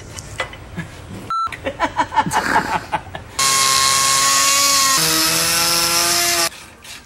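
Power drill boring into a steel part: a loud, steady whine that starts suddenly about three and a half seconds in, drops in pitch about halfway through, and cuts off suddenly three seconds later. Before it, light clicks of tools being handled and one short beep.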